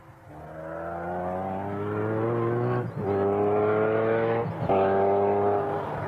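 Koenigsegg supercar's V8 accelerating hard, its engine note climbing through the revs. It drops briefly for two upshifts, about three and four and a half seconds in, and climbs again after each.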